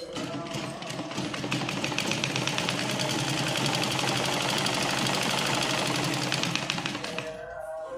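Sewing machine stitching through lehenga fabric, running fast with a rapid, even needle rhythm. It slows and stops about seven seconds in.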